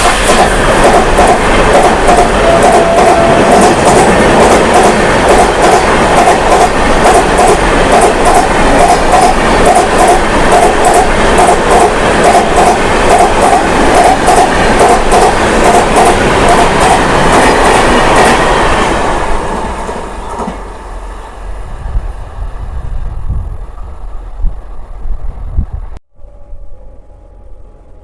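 Express passenger train running through a station at speed, its wheels clattering in a steady rhythm over the rail joints; the clatter fades away about two-thirds of the way through as the last coaches pass.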